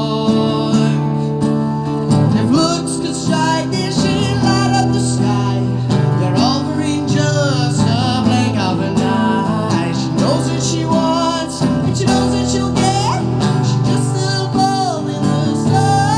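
Strummed acoustic guitar with a high, wavering melody line over it.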